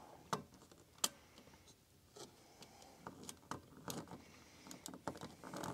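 Faint, scattered small clicks and taps as a wire lead is fastened to the negative screw terminal of a plastic smoke detector base. The sharpest click comes about a second in.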